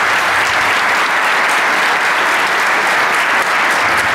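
Audience applauding steadily, a crowd clapping at the close of a talk in a large hall.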